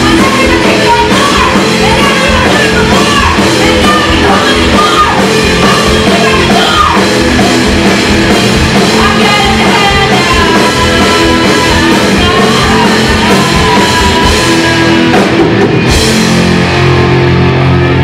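Live rock band: electric guitars, bass and drum kit under a sung lead vocal, loud and full. About sixteen seconds in the drums stop and the guitars hold a ringing chord.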